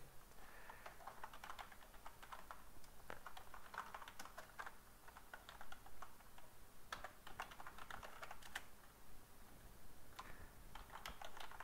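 Computer keyboard keys clicking as a terminal command is typed, in several short bursts of keystrokes with pauses between.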